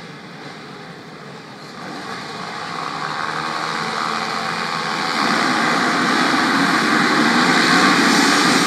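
A full field of motocross bikes revving together at the starting gate, their engines blending into one dense noise that swells steadily louder over several seconds to a peak near the end.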